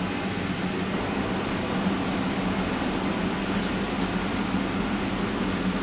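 Forge running: a steady rushing noise with a low hum, with no hammer blows.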